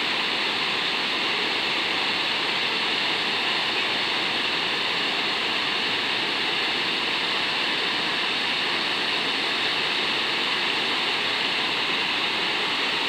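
Water rushing steadily over a low concrete river weir, a constant hiss.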